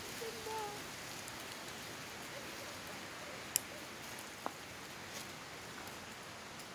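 Steady outdoor hiss of forest ambience, the kind of even wash that light rain or wind in the trees makes. A few faint pitched sounds, like distant voices, come in the first second, and there are two faint sharp clicks about three and a half and four and a half seconds in.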